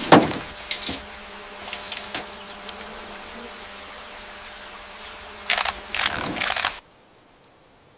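DSLR camera shutter clicking, a few single shots and then a quick cluster of clicks near the end. The sound cuts off suddenly shortly before the end.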